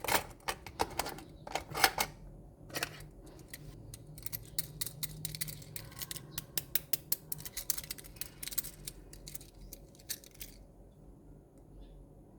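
Quick, irregular small clicks and taps from handling diecast miniature trucks and their packaging, dying away about ten and a half seconds in.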